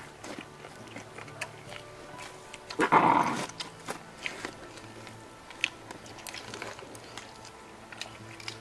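Wet chewing and lip-smacking of people eating roasted pork by hand: many small sharp clicks over steady background music. A brief louder sound breaks in about three seconds in.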